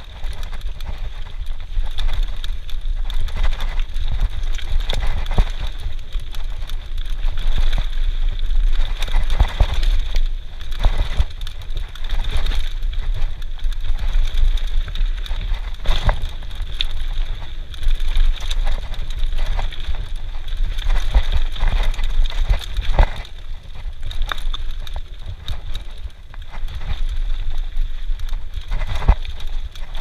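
Mountain bike descending a dirt trail at speed: steady wind rumble on the microphone, tyres on dirt, and the bike rattling and clattering over bumps, with many short knocks throughout.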